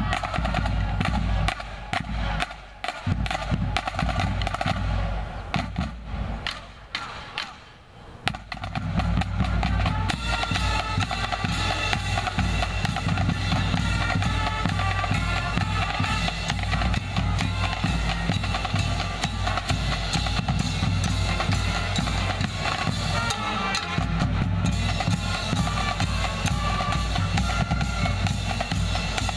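High school marching band on the move: the drumline plays a cadence of snare and bass drum strokes, dipping briefly about eight seconds in. Then the full band, brass and sousaphones, comes in playing a tune over the drums.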